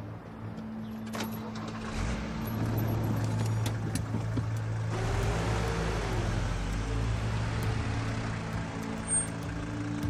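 Pickup truck engine running as the truck drives away, the engine and tyre noise growing louder about two seconds in and again about five seconds in.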